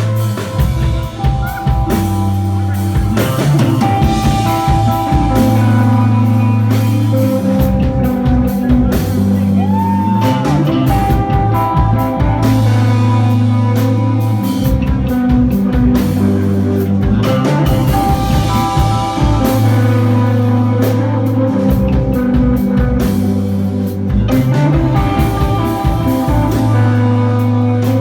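Live rock trio playing: a spacey, droning electric guitar over a bass guitar holding long low notes that change every few seconds, with a drum kit.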